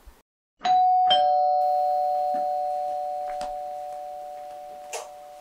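Two-tone ding-dong doorbell chime: a higher tone then a lower one about half a second later, both ringing on and slowly fading. A few faint clicks follow, the sharpest near the end.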